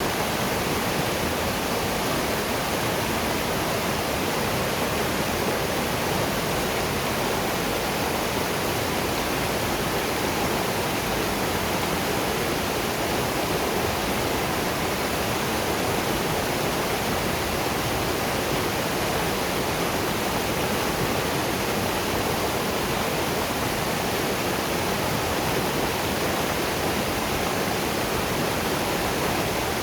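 Waterfall and river water rushing in a steady, even roar with no breaks.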